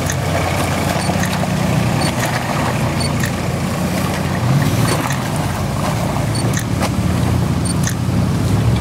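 Isuzu Trooper's engine running at low revs as the 4x4 crawls over rocks, the pitch shifting a little with the throttle, with a few faint knocks.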